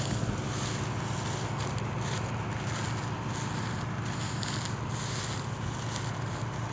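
1976 New Holland 1530 combine harvester running steadily: a constant low engine drone with an even hiss above it.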